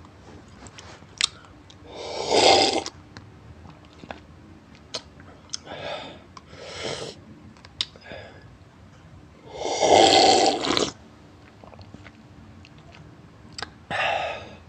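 Close-up mouth sounds of eating and drinking from a foam cup: small wet clicks of chewing between five noisy bursts. The loudest and longest burst comes about ten seconds in and lasts about a second.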